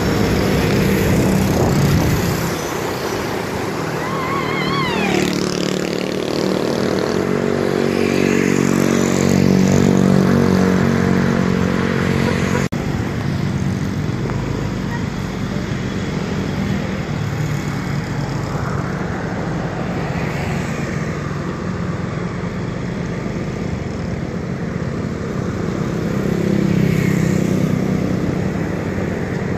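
Road traffic: vehicle engines and tyres passing, swelling as vehicles go close by about ten seconds in and again near the end. A brief warbling tone sounds about four seconds in.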